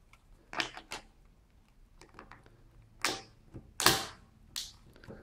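Plastic battery cover of a Nokia 603 phone being pressed back on: about five sharp plastic clicks and snaps, the loudest about four seconds in.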